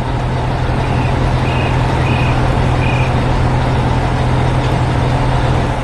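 A heavy vehicle engine running steadily with a low hum, with four short high beeps in the first half.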